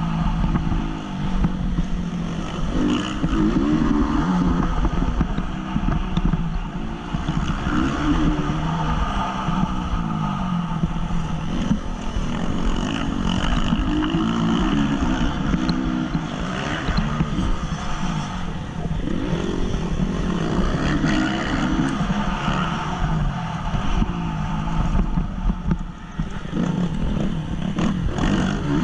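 2014 Honda CRF 250's single-cylinder four-stroke engine racing on a motocross track, its pitch rising and falling over and over as the rider accelerates, shifts and backs off, under a steady rumble of wind and track noise.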